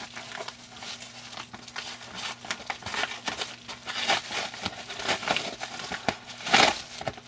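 Yellow padded paper mailer crinkling and tearing as it is worked open by hand, in irregular crackles with the loudest burst about six and a half seconds in.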